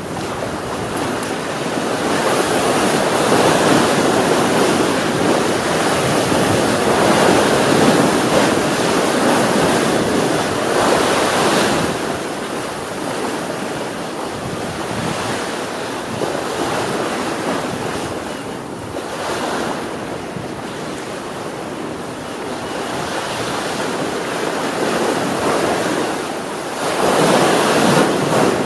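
Ocean waves breaking and washing on a shore, the surf swelling and easing over several seconds, louder near the start and again near the end, with wind buffeting the microphone.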